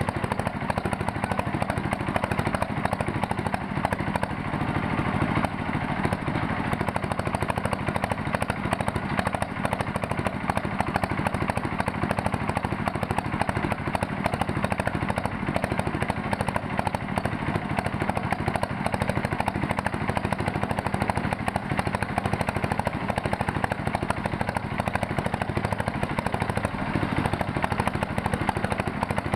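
Bored-pile drilling rig's diesel engine running steadily with a fast, even pulse while boring a 1200 mm pile hole.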